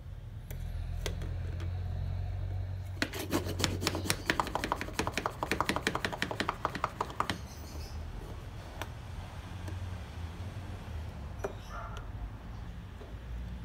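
Milk being frothed in a glass French press by pumping its metal mesh plunger up and down fast: a quick, even run of strokes, several a second, beginning about three seconds in and lasting about four seconds. A few single clicks come before it as the plunger goes into the press, and a few light knocks come near the end as the plunger is set down.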